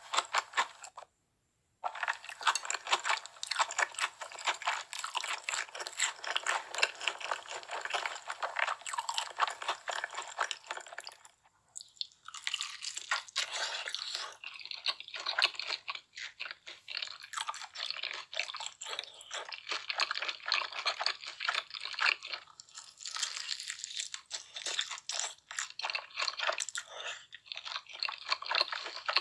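Close-miked ASMR eating: crunchy bites and chewing of fried chicken and spicy noodles, a dense crackle of crunches, with a brief dead silence about a second in and a short lull near the middle.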